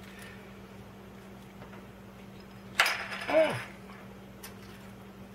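Small plastic rotary-tool accessory containers clicking and rattling as they are handled, with a sharper click about three seconds in followed by a short hum falling in pitch, over a faint steady hum.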